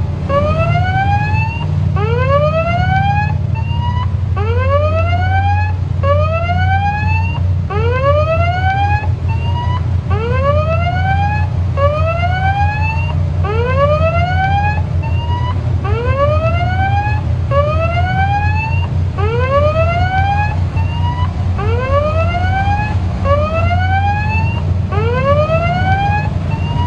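A ship's electronic siren sounding a rising whoop over and over, about one whoop every second and a quarter, over a steady low rumble.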